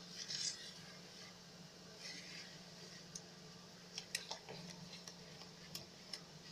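Silicone spatula stirring a thick yogurt and spice marinade in a bowl: faint wet scraping with a few light clicks and taps against the bowl, over a low steady hum.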